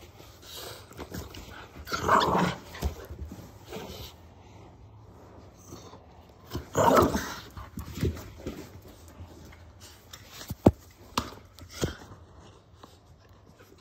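French bulldog puppy growling in play while mouthing a slipper, with two louder growls about two and seven seconds in and a few short, sharp sounds later on.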